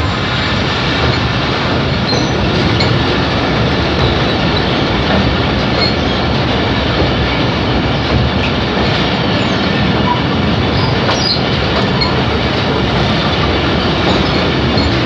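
Passenger train running over a riveted steel truss bridge, its wheels and coaches making a loud, steady rumble.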